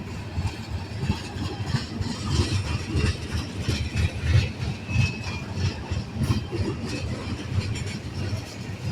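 Union Pacific freight train rolling past: a continuous low rumble with the clatter and clicking of wheels over the rails.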